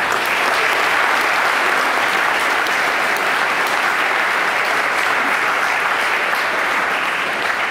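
Audience applauding: the clapping breaks out suddenly and holds steady and loud.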